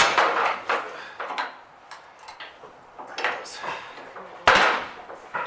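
Metal clanks and knocks from a fifth-wheel hitch being worked as it latches, several separate strikes with the loudest about four and a half seconds in.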